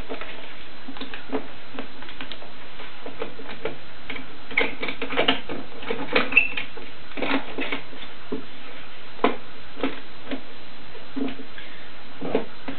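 Irregular light clicks and knocks of metal bar clamps being handled and tightened on a glued wooden window frame, thickest in the middle stretch.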